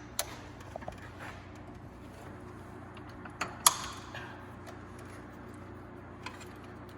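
Scattered metallic clicks and clinks of hand tools and engine parts, as a bolt is worked off and parts are handled, with one sharp clink about three and a half seconds in that rings briefly.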